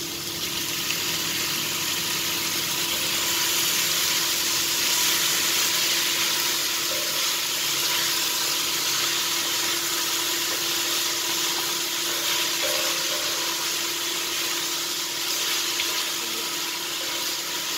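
Chicken cubes sizzling in a hot oiled wok over a gas flame as they are tipped in and stirred. The hiss swells in the first second or so, then holds steady and loud.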